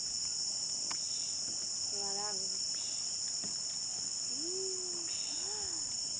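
A steady, high-pitched insect chorus drones throughout, with a few short, low calls over it, about two seconds in and twice near the end.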